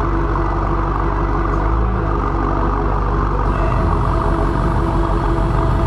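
BMW M8 Competition's twin-turbo 4.4-litre V8 idling steadily.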